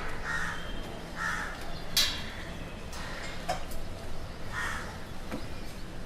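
Crows cawing: a few short, harsh calls over a steady low rumble of street ambience, with a sharp click about two seconds in.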